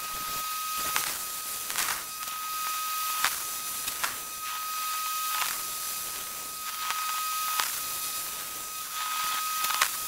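MIG arc of an automatic bore welder building up the inside of a bore with weld: a steady hiss and crackle with sharp pops at irregular intervals, over a steady high-pitched tone.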